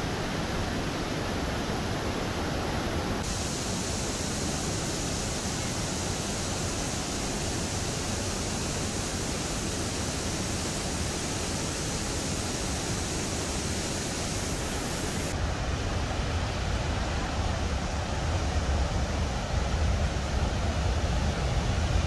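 The Rhine Falls, a very high volume of water pouring over rocks, heard as a steady rush of noise. It shifts in tone twice and grows deeper and a little louder over the last several seconds.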